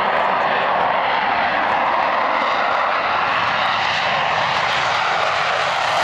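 Boeing F/A-18 Super Hornet taking off, its twin jet engines a loud, steady rushing roar.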